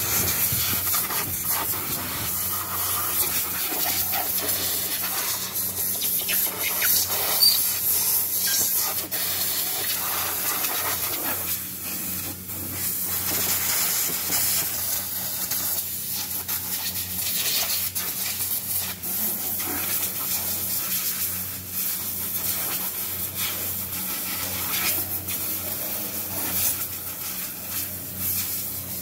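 Compressed-air blow gun hissing continuously, swelling and easing as it blows dust out of an electric forklift's controller compartment, over a steady low hum.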